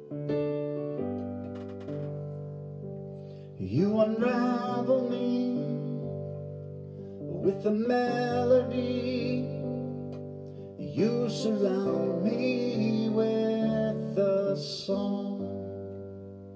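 Slow worship song on an electronic keyboard: sustained piano chords, with a man singing in three phrases starting about three and a half seconds in.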